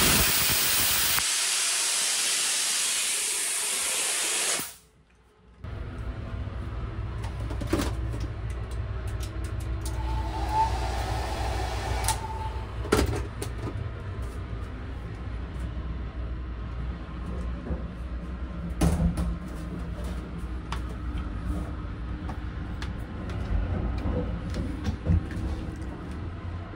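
Shower spray running with a steady loud hiss, which stops abruptly about five seconds in. Afterwards the low steady rumble of the moving sleeper train runs on, with scattered clicks and knocks.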